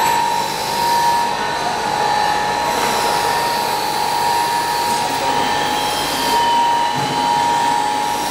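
Twin-screw blown film machine running: steady mechanical noise with a constant high-pitched whine, and a fainter second whine wavering briefly in the middle.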